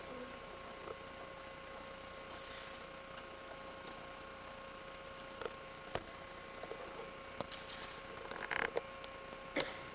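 Steady electrical hum with a low hiss, broken by scattered faint clicks and knocks that come more often in the second half, with a short scuffing noise near the end.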